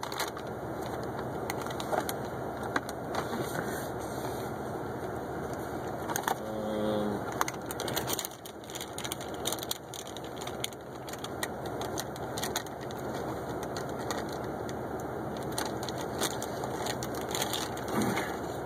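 MRE pouches and packaging being handled: scattered crinkling and crackling of plastic and foil over a steady background hiss, with a brief tone about six and a half seconds in.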